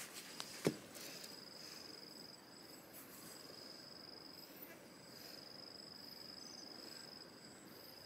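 Insects trilling in a high, even tone that runs for a couple of seconds at a time with short breaks. A single sharp tap comes under a second in.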